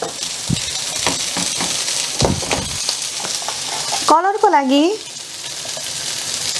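Boiled potatoes with coriander and red chilli sizzling in a little oil in a non-stick frying pan, stirred and scraped with a wooden spatula in short strokes. A brief voice cuts in about four seconds in.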